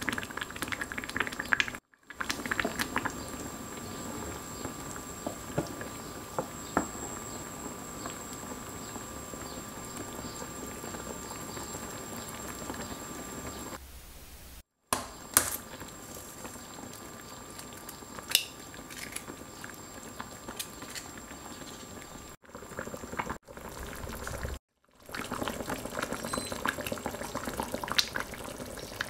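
Korean soft tofu soup with kimchi simmering in a stainless steel saucepan: a steady bubbling with many small pops, broken by a few short edit gaps. One sharp click comes a little past halfway.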